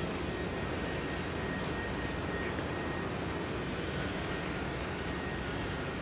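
A steady low rumble of distant engines, with a faint steady high whine and two short clicks.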